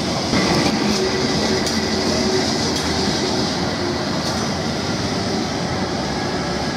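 Lisbon Remodelado heritage tram running on its rails through a curve, with a thin wheel squeal and a few clicks from wheels and track, mixed with cars driving past on cobblestones.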